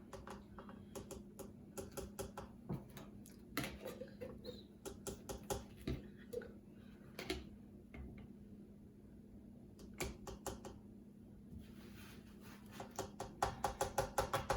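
A spoon clicking and tapping against a yogurt cup, scraping the yogurt out into a blender jar. There are scattered light clicks at first, then about a second before the end a steady run of louder taps, about three or four a second.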